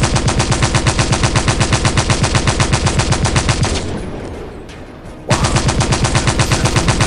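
Battery-operated toy sniper rifle playing its electronic machine-gun sound effect: a rapid rattle of shots, about seven a second, that fades out partway through, then starts again abruptly about five seconds in.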